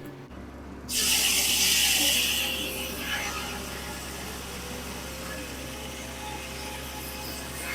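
1950 Corley sawmill running: a steady low hum, with a loud rush of noise starting about a second in that eases after a couple of seconds into a steadier machine noise.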